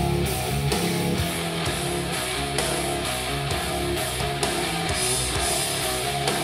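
Rock music with electric guitars and a steady beat, played through a portable Bluetooth speaker and recorded by a microphone in the room.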